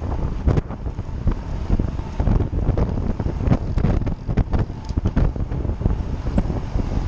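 Wind buffeting the microphone of a camera on a moving bicycle: a steady low rumble broken by frequent irregular thumps.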